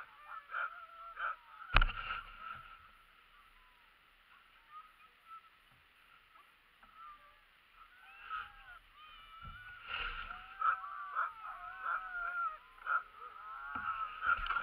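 Harnessed sled dogs yelping and whining, impatient to be off. A sharp knock sounds about two seconds in; after a lull the yelps pick up again and grow thicker toward the end.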